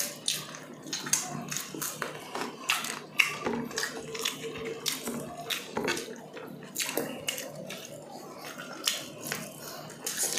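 Close-up eating sounds of people eating chicken inasal (Filipino grilled chicken) and rice with their hands: chewing and wet lip-smacking, heard as an irregular run of short, sharp clicks.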